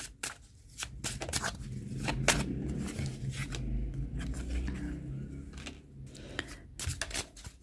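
A deck of tarot cards being shuffled by hand: many quick, irregular clicks and flicks as the cards slide and snap against each other, over a low rumble.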